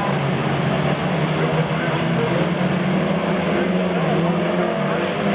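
Saloon stock car engines running as a steady drone.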